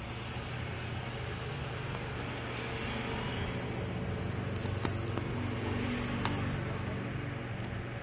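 A steady low hum and rumble that swells and then fades, with two sharp clicks about a second and a half apart near the middle.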